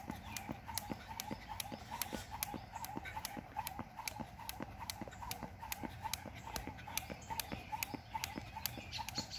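Jump rope skipping on an asphalt road: the rope slaps the ground and sneakers land in a steady rhythm of about two to three hits a second.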